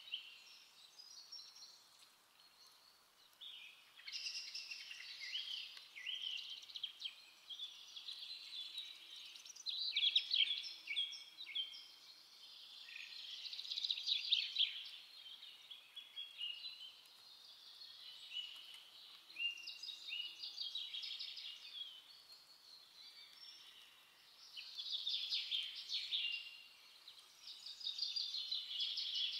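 European greenfinch twittering song: runs of rapid trills and chirps in phrases a few seconds long, with short pauses between.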